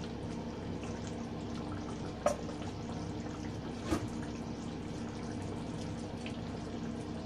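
Steady watery sound, with two sharp knocks about a second and a half apart.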